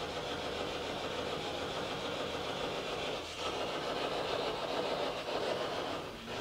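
Quiet, steady background noise with no distinct events.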